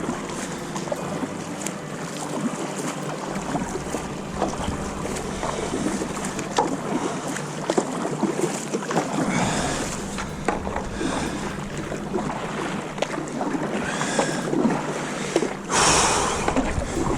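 Wind and water noise at the shoreline, with many scattered small knocks and clicks. A louder rush comes near the end.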